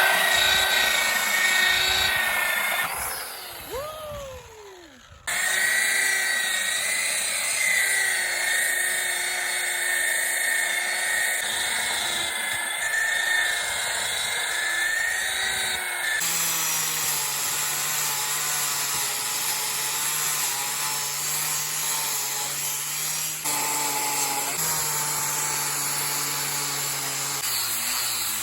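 A handheld power tool's motor running with a steady whine whose pitch wavers a little. It fades briefly a few seconds in and changes abruptly several times.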